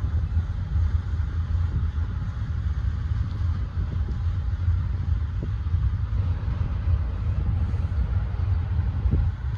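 Steady low rumble of a passing Union Pacific double-stack intermodal freight train, heard from a car.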